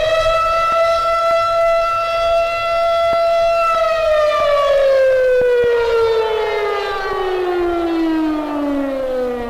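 The Ferry Building's siren sounding its workday signal. It holds one high, steady pitch for the first few seconds, then winds down, falling steadily in pitch from about four seconds in.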